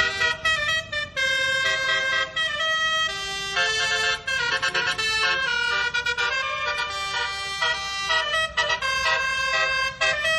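Nine-note basuri (telolet) air horn on a tour bus playing a melody: a fast run of horn notes that jump from pitch to pitch, with short breaks between phrases.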